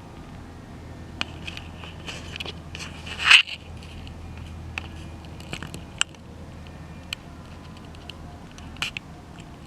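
Small scattered clicks and taps with one louder, brief scrape about three seconds in, over a low steady hum.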